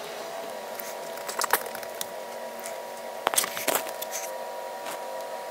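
A steady hum made of several held tones, with a few soft clicks about a second in and again past the halfway mark.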